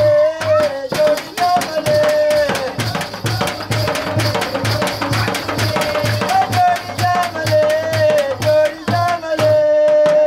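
Folk dance music: a large barrel drum struck in a steady beat of about two to three strokes a second, under a sustained melody line that wavers and bends in pitch, with sharp jingling and clicking on top.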